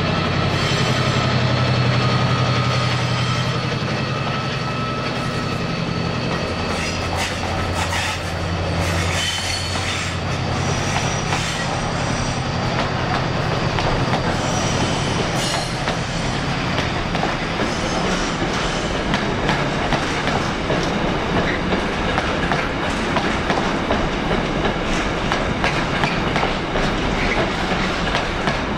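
A train moving along the rails. A steady low engine hum fades after about ten seconds, thin wheel squeal rings above it, and in the second half the wheels clatter regularly over rail joints, about once a second.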